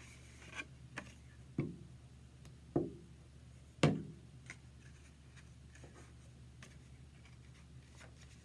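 A few light taps and soft rustles of construction paper being set down and pressed on a tabletop, with the loudest tap about four seconds in and only faint handling after.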